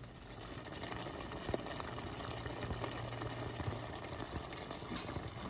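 Thick beef chili simmering in an enameled cast-iron Dutch oven: a steady bubbling with many small scattered pops.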